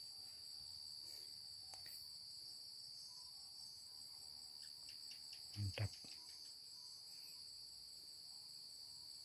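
Steady, high-pitched insect chorus droning at several pitches at once, with two brief low thumps a little past halfway.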